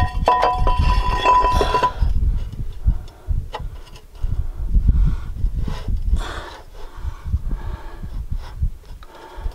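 Steel cylinder liner for a Cummins ISX ringing with a clear metallic tone that dies away about two seconds in. Then light clinks and scrapes follow as the liner is lowered into the block's bore and turned by hand, over a low rumble.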